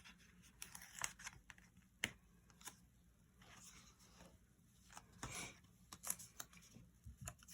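Faint handling of sticker-book paper and planner pages: scattered small clicks and soft, brief rustles as a sticker is picked out and worked with.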